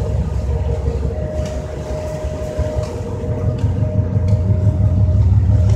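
Steady low rumble of a ferry's engines with a constant hum over it, growing louder near the end.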